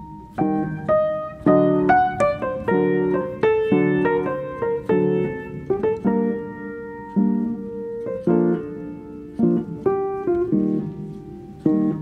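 Background piano music: a gentle melody of struck notes and chords, each left to ring and fade.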